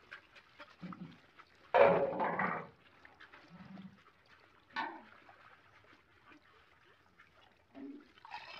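Water splashing as a round woven basket scoops rohu fry out of a netted pond enclosure, with a louder splash about two seconds in and a shorter one near five seconds.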